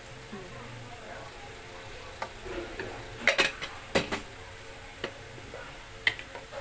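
A few sharp clicks and knocks of kitchen utensils against a stainless steel bowl and counter, the loudest a cluster about three to four seconds in, over a faint steady hum.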